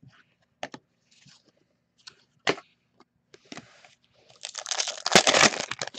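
A few light clicks of cards being handled, then, from about four and a half seconds in, a foil trading-card pack wrapper crinkling and tearing loudly as it is opened.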